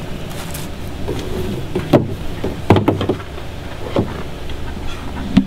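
A few short knocks and thumps of plastic hose and fittings being handled and fitted to a pump and filter, over a steady low hum.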